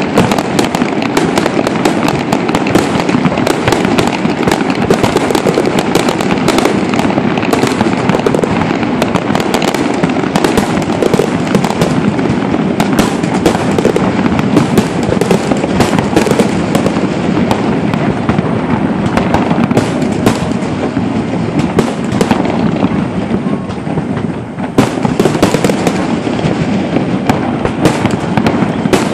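Fireworks display in full barrage: dense, rapid, overlapping bangs and crackles with no break, easing briefly about three-quarters of the way through before picking up again.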